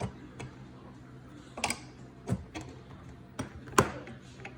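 Irregular metallic clicks and taps of a 9/16 wrench working a fitting loose on an oxygen concentrator's compressor, about eight in all, the sharpest one near the end, over a faint steady hum.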